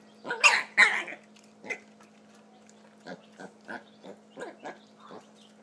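Mini pigs feeding from one bowl: two loud, sharp squeals about half a second and a second in, then a run of short grunts, about three a second.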